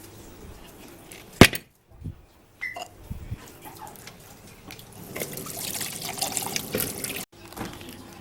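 Liquid running for about two seconds near the end, after a single sharp click about a second and a half in.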